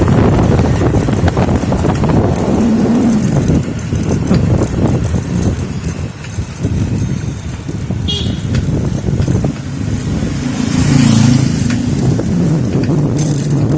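Road traffic: motor vehicles running past in a steady low rumble, with an engine tone coming up near the end and a brief high-pitched tone about eight seconds in.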